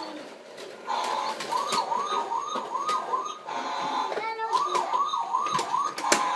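Battery-powered toy's electronic siren wailing in quick rising-and-falling sweeps, about three a second, starting about a second in with a short break in the middle. Sharp clacks of plastic toys knock against the wooden floor throughout.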